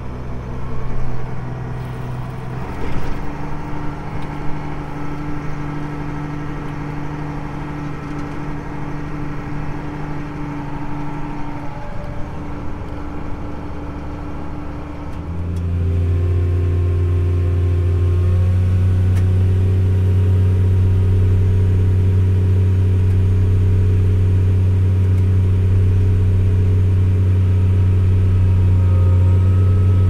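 Diesel farm machinery engine running steadily, heard from inside the cab. About halfway through it becomes louder and deeper, and a couple of seconds later its note steps up and holds as the grain cart's auger pours shelled corn into a gravity wagon.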